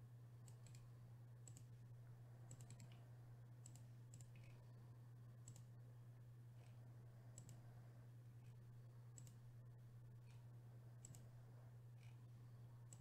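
Faint computer mouse clicks, more than a dozen at irregular spacing, some in quick pairs, over a low steady hum.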